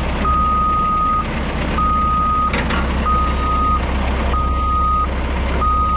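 Backup alarm on a piece of heavy earthmoving equipment beeping steadily, about five long beeps at one pitch, over a diesel engine running. A single metallic clank sounds about halfway through.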